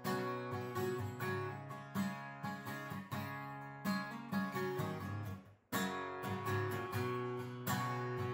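Solo acoustic guitar strumming chords, with no vocals. The playing breaks off for a moment about five and a half seconds in, then the strumming resumes.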